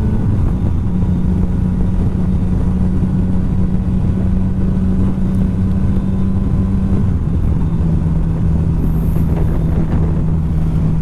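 Yamaha Tracer 900 GT's three-cylinder engine running steadily at cruising speed, with wind rushing past the microphone. The engine note drops a little about a second in and again about seven seconds in.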